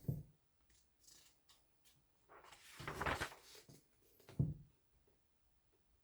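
Small handling noises: a thump at the start, about a second of rustling, then another sharp thump.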